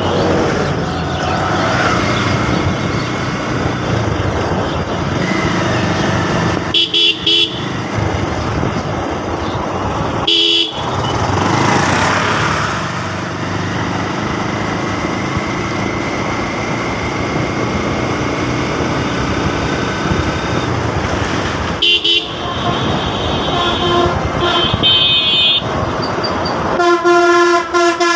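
Steady wind and road rush from riding a motorbike, broken by several short vehicle-horn toots. Near the end comes a longer, louder horn blast with several tones.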